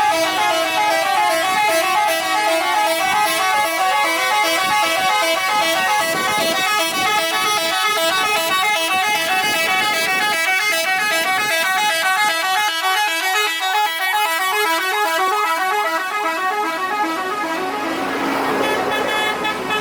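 Indonesian bus 'telolet' multi-tone horn playing a fast repeating melody of short notes, loud and continuous.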